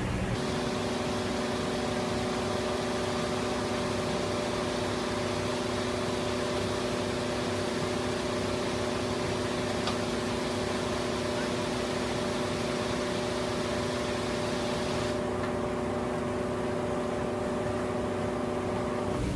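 Cargo boat's engine running at a steady speed, an unchanging drone with a hissing wash over it.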